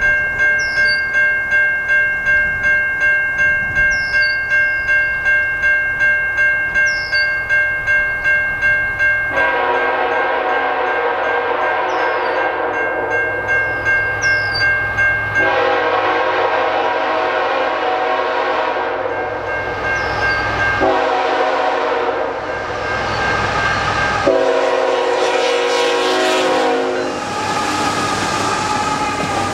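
Approaching CN freight locomotive's multi-chime air horn sounding four blasts, long, long, short, long: the grade-crossing signal. Before the horn starts, a crossing bell rings about twice a second. Near the end the locomotive and double-stack cars rush past with wheel noise.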